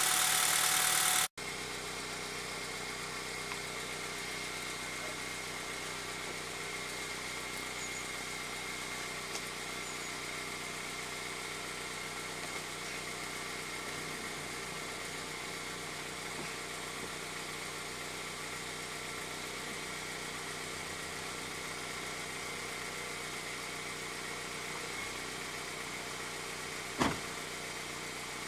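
Honda Civic Type R EP3's 2.0-litre K20 four-cylinder idling steadily on its stock exhaust during warm-up. A louder, brighter stretch cuts off abruptly about a second in, leaving an even idle, and there is a single sharp click near the end.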